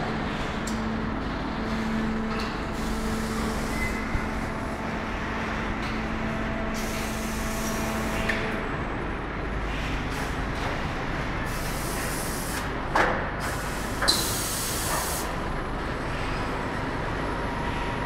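Pneumatic machinery on a bag-palletizing line: a steady machine hum with compressed air hissing out in short bursts several times, as valves vent the air cylinders. Two sharp clanks about a second apart come just after the middle.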